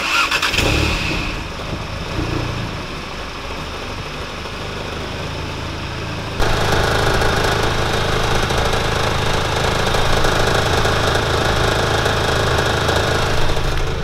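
A 2017 VW Golf GTI (MK7)'s turbocharged 2.0-litre four-cylinder starting and running at idle, with a rattling from the exhaust. About six seconds in it suddenly gets louder and harsher. The rattle comes from a downpipe bracket whose bolts have worked themselves loose.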